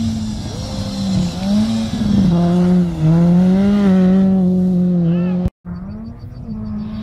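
Rally car's engine revving hard as the car slides through a gravel corner and passes close by, its pitch rising and falling with the throttle and loudest as it goes past. The sound cuts off abruptly about five and a half seconds in, and another engine is then heard.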